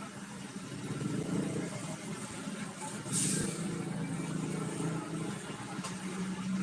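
Large diesel bus engine running steadily, with a short hiss about three seconds in.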